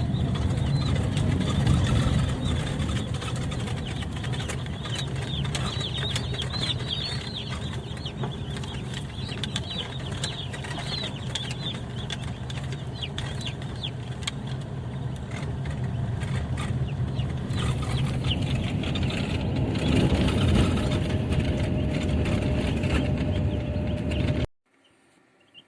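Ross 308 broiler chicks cheeping inside a moving car, many short high peeps over steady engine and road rumble. The sound cuts off suddenly near the end.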